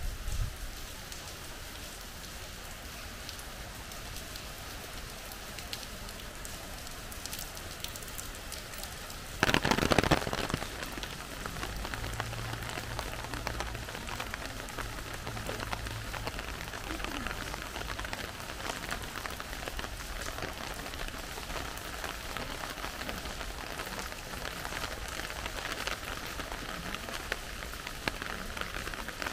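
Steady rain falling and pattering on surfaces. About nine and a half seconds in there is a loud, sudden rush of noise lasting about a second, and after it the rain sounds heavier. A faint low hum follows for a few seconds.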